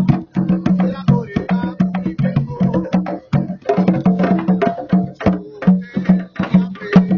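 Candombe drumming on tamboriles: hand-and-stick strokes in a fast, steady rhythm, with sharp wooden clicks of sticks on the drum shells.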